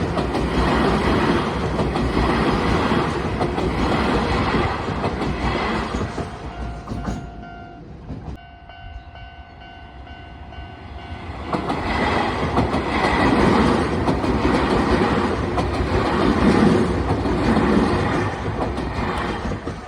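Keio 1000 series electric trains passing at a level crossing, wheels rumbling and clacking over the rails. The first train fades away about seven seconds in, and a second one passes from about twelve seconds in. In the lull between them the crossing's warning signal sounds as a steady tone.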